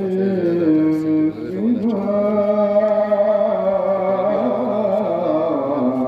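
A man chanting Mawlid verses into a handheld microphone, holding long notes that slide slowly up and down in pitch.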